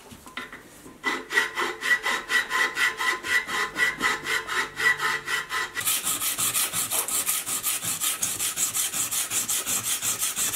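A hand file rasping back and forth on a cast 18-karat gold railroad spike, cleaning up the rough casting in even strokes, several a second. About six seconds in the strokes become brighter and faster.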